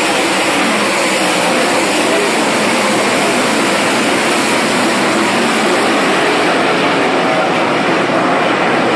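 A pack of dirt-track race cars running flat out around the track, their engines making loud, steady, unbroken noise.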